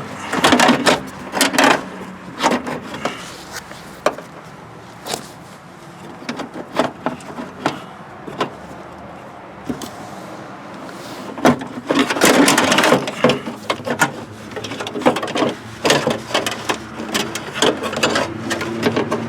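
Irregular clunks, clicks and scraping of a door latch and lock actuator assembly being worked down and out through the inside of a car door, plastic and metal knocking against the door frame, with a busier stretch of scraping partway through.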